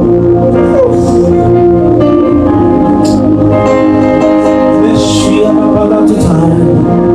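Slow instrumental worship music with long held chords that change every second or two, and a few brief hissy swells on top.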